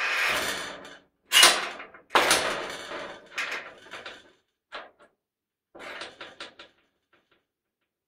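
Metal basement door being shut: a scraping rush, then a loud slam about a second in and a second bang soon after, followed by smaller metallic rattles that die away.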